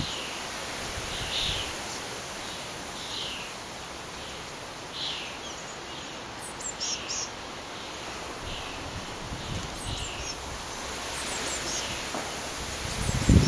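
Blue tits calling around the nest box: short calls repeated every second or two, with a few thin, high falling notes in the second half, over a steady hiss of wind.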